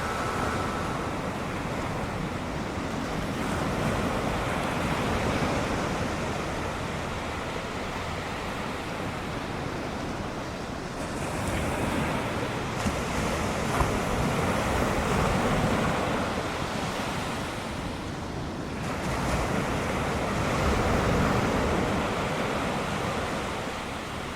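Ocean surf breaking and washing in, swelling louder and easing every several seconds as sets of waves come through, with wind on the microphone.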